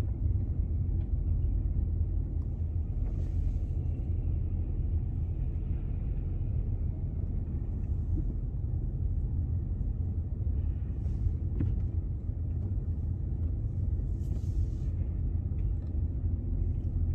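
Steady low rumble of a car's engine and tyres while driving slowly.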